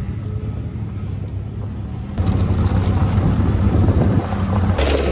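Benelli TRK 502 X adventure motorcycle's parallel-twin engine running under way on a gravel road, heard from on the bike with wind on the microphone. It gets suddenly louder about two seconds in.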